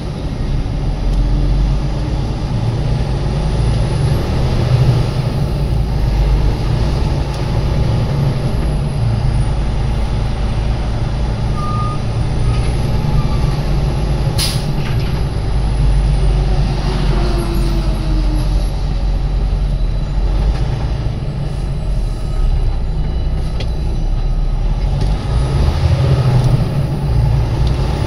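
Steady low rumble of a truck's engine and road noise heard inside the cab while driving slowly, with a single sharp click about halfway through.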